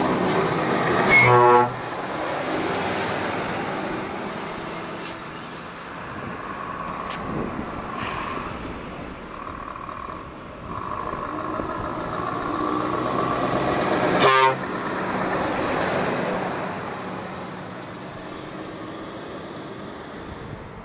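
Arriving trucks driving past with their engines running, and two short loud blasts of a truck horn, one about a second in and a shorter one about fourteen seconds in.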